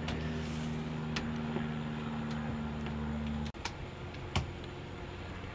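A steady low mechanical hum that cuts off abruptly about three and a half seconds in, with a few scattered sharp ticks.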